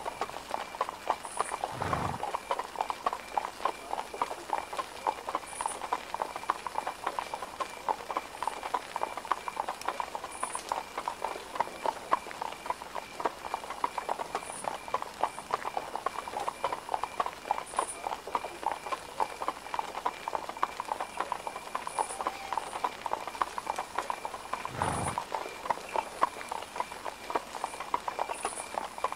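Horse hooves clip-clopping steadily in a continuous stream of closely spaced hoofbeats. Two low, dull thumps come about two seconds in and again near the end.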